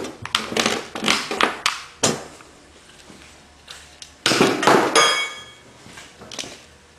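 Steel bushings clinking and clanking against metal as they are handled. A cluster of knocks comes in the first two seconds, and a louder clank a little over four seconds in rings briefly.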